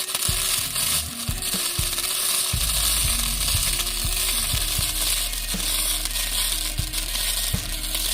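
Electric welding arc crackling and sizzling steadily as a weld is laid, from a Lincoln Power MIG 210MP welder. A steady low hum comes in about two and a half seconds in.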